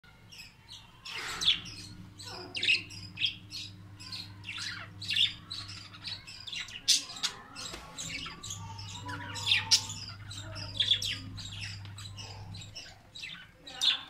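Budgerigars chirping and chattering: a quick, uneven string of short, sharp chirps, with a faint steady low hum underneath.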